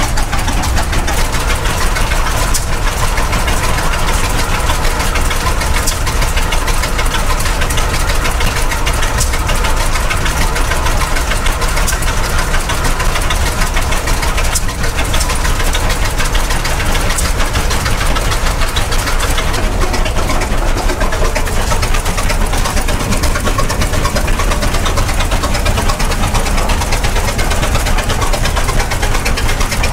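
Avery 40-80 prairie tractor's large engine running steadily, heard up close from the operator's platform.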